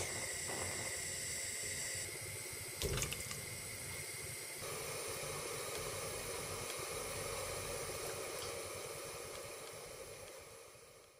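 Gas stove burner hissing steadily, then a pan of water with sausages in it simmering and bubbling; a brief knock about three seconds in, and the sound fades out near the end.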